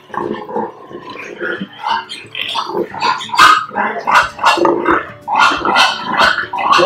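Pigs grunting and squealing in short calls. The calls grow into a quick run at about three a second partway through.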